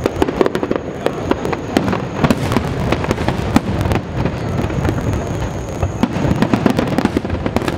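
Aerial fireworks display: shells bursting in quick, overlapping succession, a continuous dense crackle of pops and bangs with deeper booms mixed in.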